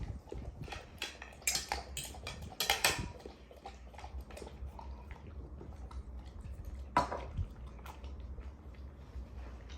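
Chocolate Labrador retriever eating from a dish, with a quick run of sharp clinks and clicks from the dish in the first few seconds and another single clink about seven seconds in.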